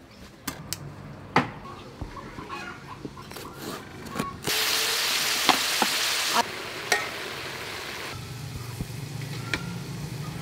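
A few scattered knocks and clicks, then, about four and a half seconds in, chicken and vegetables sizzling loudly in a metal wok as they are stir-fried, with a clink or two of the utensil, for about two seconds. After it comes a quieter steady hiss with a low hum.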